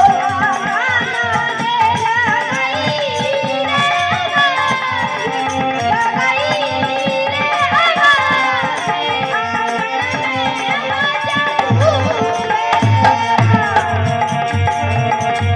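Rajasthani folk music: an instrumental passage of a melody instrument playing gliding, ornamented lines over a steady hand-drum beat. The low drum strokes come in stronger for the last few seconds.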